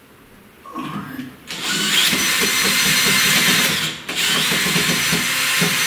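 Cordless drill/driver backing out the screws of a ceiling light fixture. A couple of short blips about a second in, then a long steady run of the motor with a high whine, a brief stop, and a second long run.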